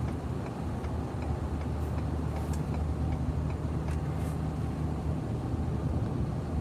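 Steady cabin drone of a 2019 Ford F-250 with its 6.7-litre Power Stroke V8 turbodiesel, cruising with road noise, heard from inside the cab. A faint, even ticking runs underneath, and a car going the other way hisses past about four seconds in.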